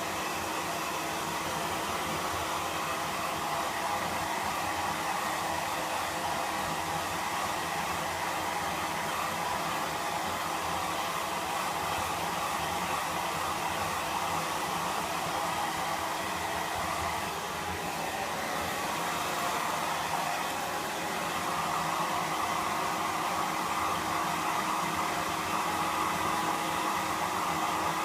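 Hair dryer blowing steadily while drying a Pomeranian's wet coat, with a slight dip in level about two-thirds of the way through.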